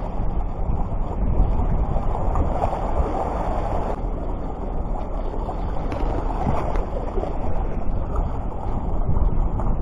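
Steady rushing of wind and sea surf, with no distinct events.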